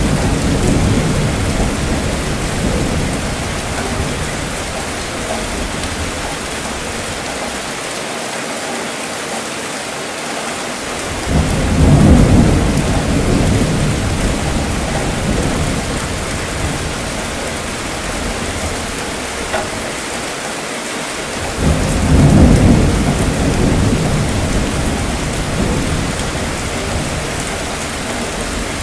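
Steady rainfall with rumbling thunder. A roll of thunder is dying away at the start, another swells up about 11 seconds in and a third about 22 seconds in, each fading slowly under the rain.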